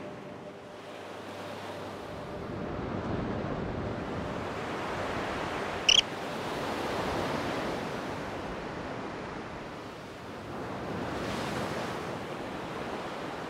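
Ocean waves washing in slow swells, rising and falling every few seconds, with a single very short high chirp about six seconds in.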